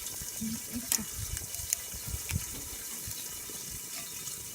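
Steady hissing sizzle of meat cooking in a lidded pan over a charcoal fire, with a few sharp crackles about a second in and again shortly after.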